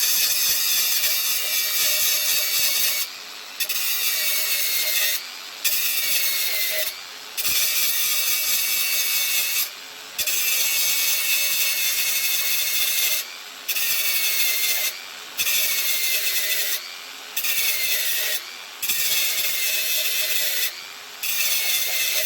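Angle grinder grinding welds flat on steel, in repeated passes of a few seconds with brief lifts between them. A high whine falls in pitch at the start of several passes.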